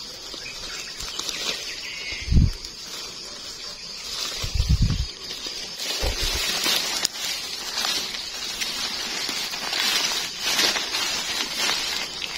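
Rustling of grass and dry leaves as a gloved hand pulls termite mushrooms from the ground, with a few low thumps in the first half and denser rustling in the second half, over a steady high hiss.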